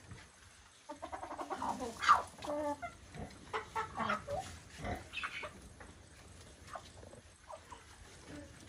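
A flock of chickens clucking as they feed: a busy run of short calls from about a second in, the loudest around two seconds, thinning out to a few scattered clucks in the second half.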